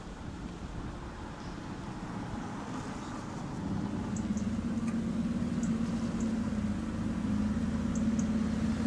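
Aston Martin Vantage GT8's V8 running steadily at low speed, its hum growing louder as the car approaches.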